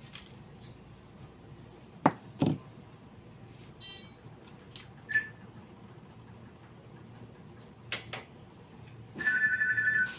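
Two sharp knocks about two seconds in and a few lighter clicks of things being handled, then near the end about a second of a fast-pulsing, two-tone electronic beep.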